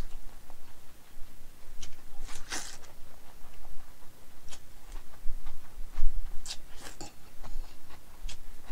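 A person slurping cold naengmyeon noodles in a string of short hissing sucks, the longest about two and a half seconds in, with chewing between them.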